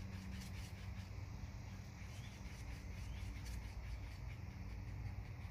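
Faint, repeated scraping of a wooden toothpick stirring JB Weld two-part epoxy on a small mixing surface, over a steady low background rumble.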